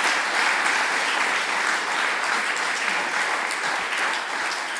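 Conference audience applauding steadily, a dense patter of many hands clapping at the close of a talk, easing slightly near the end.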